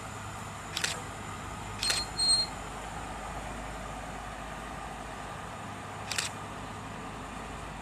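Schöma D-2840 diesel shunting locomotive running at a distance, heard as a faint steady hum. Sharp light clicks come four times over it, and one of them is followed by a short high beep.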